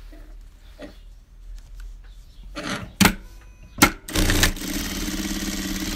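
Sewing machine starting up about four seconds in and running steadily, stitching through the fabric layers. Before it come a couple of sharp clicks.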